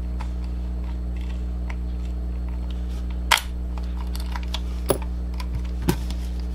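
A steady low electrical hum, with a few sharp clicks from the reassembled computer mouse being handled. The loudest click comes about three seconds in, and two smaller ones follow near the end.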